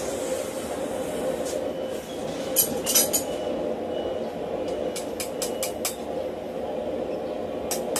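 Hand hammer striking red-hot steel held in tongs on an anvil: a few separate blows, then a quick run of about five strikes around five seconds in, and two more near the end. A steady hum runs underneath.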